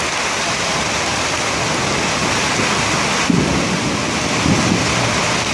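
Heavy rain falling steadily, a constant hiss, with a faint rumble of thunder starting about three seconds in.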